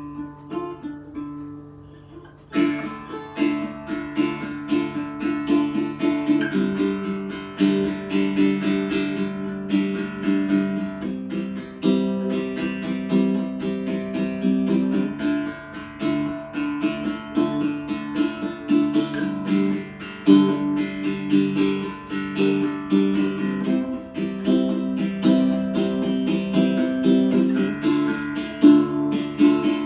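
Background music led by plucked, strummed guitar, filling out about two and a half seconds in.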